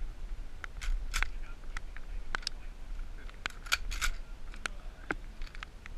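Scattered sharp metallic clicks and knocks of a shotgun being handled and cleared, about a dozen irregular clicks over a faint low rumble.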